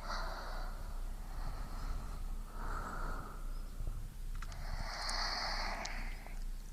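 A person breathing slowly, each breath a long airy rush of one to two seconds; the strongest starts about four and a half seconds in and lasts nearly two seconds. A faint low hum runs underneath.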